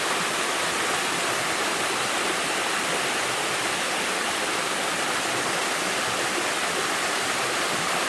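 Small mountain-valley waterfall pouring steadily into its pool: an even, unbroken rush of falling water.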